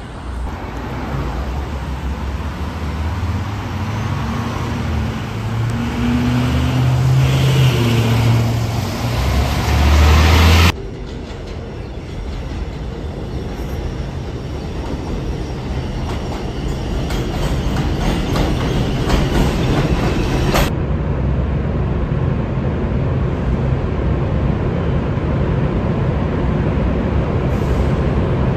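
Three short clips cut together: first a low vehicle rumble that builds to a loud peak and cuts off abruptly about ten seconds in; then the steady running noise of an elevated New York City subway train at a distant platform; then an underground subway train approaching a station with a steady rumble.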